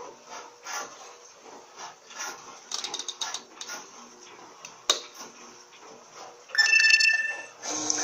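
Electrolux Turbo Limpeza 8 kg top-load washing machine agitating, water and clothes sloshing in repeated surges about once a second. A sharp click comes near five seconds as the program selector knob is turned, and a loud steady tone sounds for about a second near the end.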